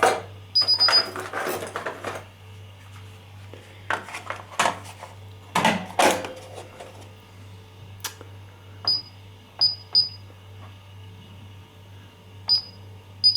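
Short high beeps from a Paradox alarm keypad as keys are pressed during zone programming: one near the start, a quick run of three a little past the middle, and more near the end. Between them come sharp plastic clicks and knocks from handling the wireless detector and its cover. A steady low hum runs underneath.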